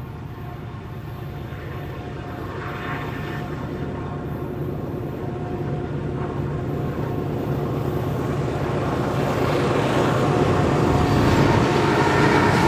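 Several diesel-electric locomotives hauling a long double-stack container train approach under power. Their engine drone grows steadily louder as the lead units pass close by near the end, joined by rising wheel-on-rail noise.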